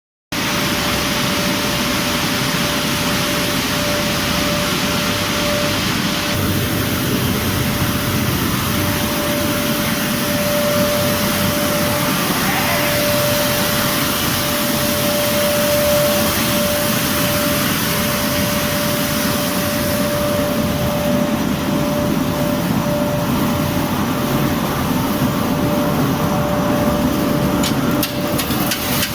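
Wheat flour milling machinery running steadily: a constant mechanical noise with a steady whine through it. A few sharp clicks come near the end.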